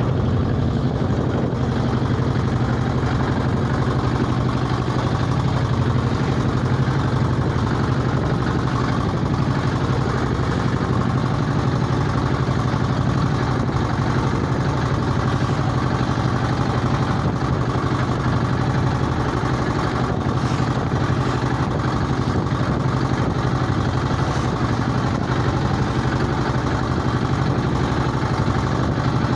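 Small fishing boat's engine running steadily under way, a constant low hum that holds the same pitch and level throughout.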